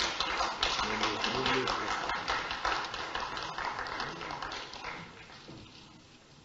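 Light applause from a small group of people, a dense patter of claps that thins and dies away about five seconds in.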